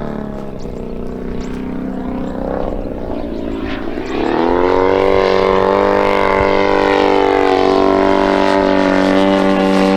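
Giant-scale RC Yak 54's 120cc DA twin-cylinder petrol engine and propeller in flight, throttled back at first, then opened up about four seconds in, its pitch rising and then holding steady and loud.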